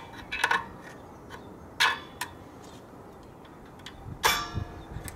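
Screwdriver clicking against the handbrake adjuster cog inside a Volvo rear brake rotor as the cog is turned down to slacken the parking-brake shoes: a few sharp metal clicks, then about four seconds in a louder metallic clang that rings briefly.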